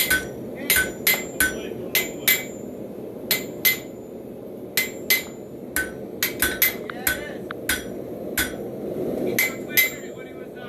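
Hand hammer striking a hot railroad spike on a Hay Budden anvil: about twenty irregularly spaced blows, each with a short bright metallic ring. A steady low rushing noise runs underneath.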